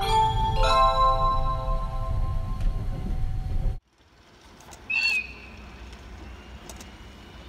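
Short channel intro jingle of bell- or chime-like tones that cuts off abruptly after about four seconds. It gives way to quiet open-air background with a brief high chirp about a second later.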